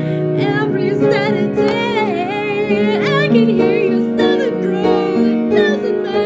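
Music: a singing voice with wide, wavering vibrato over sustained keyboard chords.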